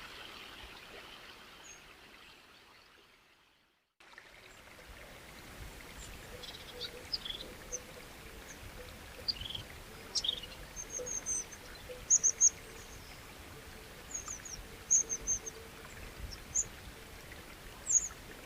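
Running water, like a stream, fades out to a moment of silence. An outdoor ambience then begins, with many short, high bird chirps over a steady background hiss.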